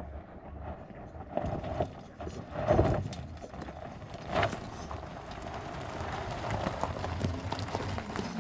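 Electric four-wheel-drive hub-motor ATV driving over rocky gravel on battery power alone, with no engine running: tyres crunching over stones, with louder jolts about three and about four and a half seconds in.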